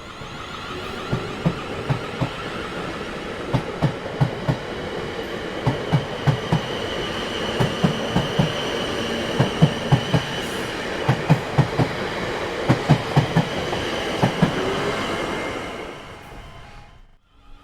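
Train cars rolling over rail joints with a clickety-clack of repeated knocks in small groups, over a steady rumble and a faint high ringing tone. The train sound fades away a couple of seconds before the end.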